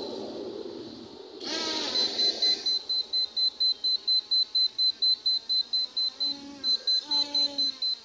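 Electronic beeping from a small folding camera drone being set up: a fast run of short, even, high beeps, about three or four a second, with a brief break shortly before the end.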